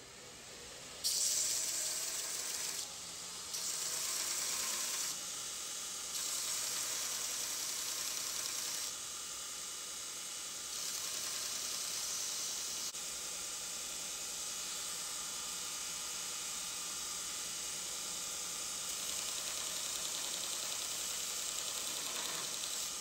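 Steady hissing abrasion of a knife handle being sanded, its level jumping up and down abruptly several times in the first half.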